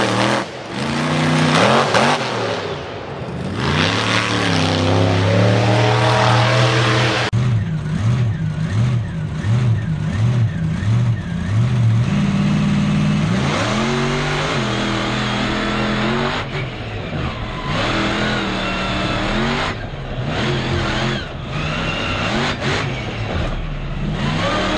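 A 1,500-horsepower mega truck engine revving hard, its pitch rising and falling again and again. About seven seconds in, the sound switches to the engine heard from inside the cab, with a run of about five quick throttle blips, then longer revs up and down.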